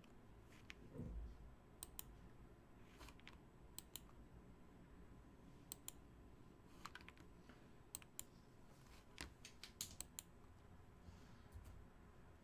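Faint, irregular clicks of a computer keyboard and mouse, often two close together, with quiet pauses between.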